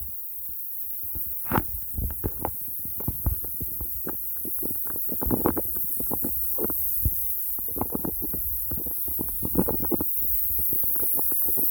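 Irregular patter of water splashes and taps from a lawn sprinkler's spray, over a low rumble and a steady high hiss.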